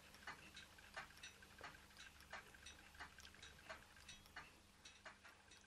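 Faint, regular ticking, about three ticks every two seconds, from a Ross yoke low-temperature Stirling engine running slowly on a mug of hot water.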